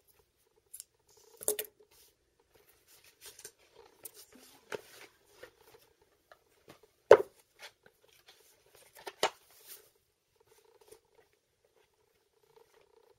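Paper and file-folder card rustling and tapping as a junk journal's signatures are handled and sewn, with scattered light clicks and a few sharper knocks, the loudest about seven seconds in.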